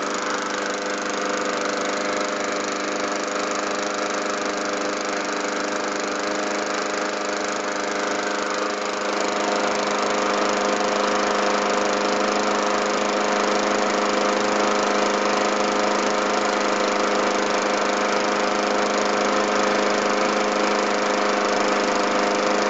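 Murray mower's small engine running steadily, just caught after a dose of starting fluid on a hard start; it gets slightly louder about nine seconds in.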